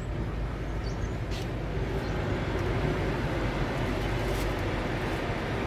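Car running, a steady low rumble heard from inside the cabin as it moves up to the next window.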